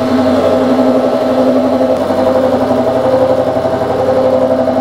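Face mill on a milling machine taking a skim cut of about 20 thousandths across a steel vise-jaw blank to remove the mill scale. A loud, steady cutting whine with a fast flutter from the inserts striking the work comes up as the cutter enters the stock.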